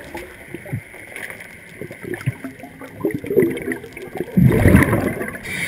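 Underwater gurgling of a scuba diver's exhaled regulator bubbles, with small knocks, and a loud rumbling rush of bubbles about four and a half seconds in lasting about a second.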